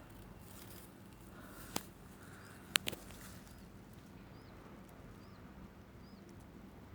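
Quiet forest ambience with a bird giving faint, short high chirps about once a second, broken by three sharp clicks around two to three seconds in.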